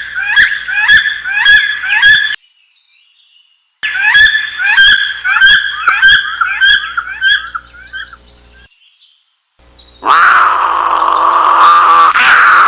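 A bird calling in short chirps, repeated about twice a second, in two bouts with a pause between them. About ten seconds in, a different, louder animal sound starts and continues.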